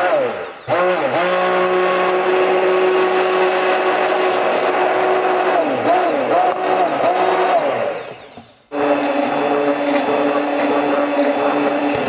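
Electric stick blender running in a glass beaker of hot conditioner emulsion, blending the oil phase into the water phase. Its motor pitch wavers as it is worked through the mix. It cuts out briefly just after the start and again about two-thirds of the way through, then starts up again at a lower pitch.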